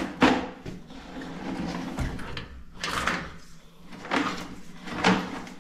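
Push cable of a drain inspection camera being fed into the pipe, making several short sliding, scraping noises.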